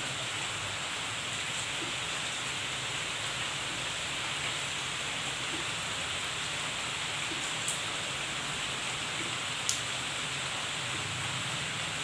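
Steady rain falling on a tropical garden's palms and foliage, an even continuous hiss, with two sharp drip ticks about two seconds apart in the second half.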